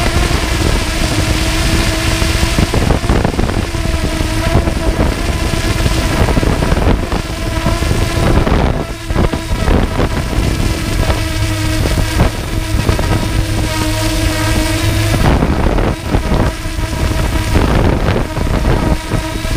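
Quadcopter drone's electric motors and propellers whining steadily as it descends, with wind buffeting the microphone in irregular gusts.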